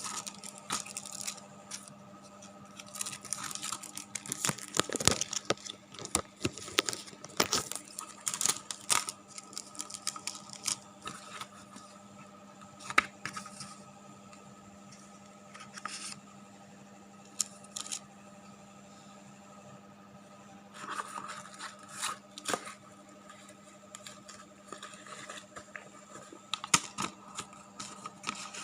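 Intermittent tearing, crinkling and scraping sounds of material being handled, busiest in the first ten seconds and sparser after, over a steady low hum.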